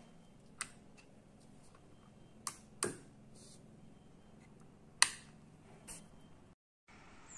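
Five sharp clicks at irregular intervals, the loudest about five seconds in, from a hand working the switch of a homemade PCP air rifle's electric firing circuit and its solenoid valve.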